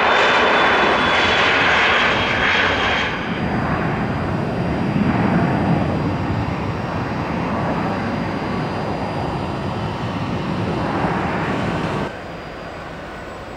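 Dassault Falcon 8X trijet at takeoff power climbing away, its jet engines loud and full with a strong hiss for the first few seconds, then settling to a lower, duller rumble that fades as the aircraft recedes. The level drops suddenly near the end.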